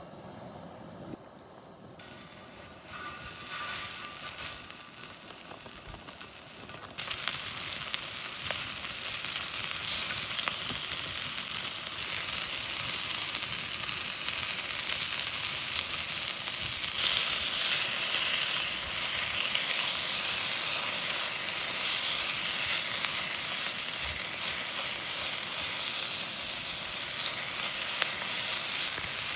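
Food frying and sizzling, starting softly a couple of seconds in and building to a steady sizzle after about seven seconds.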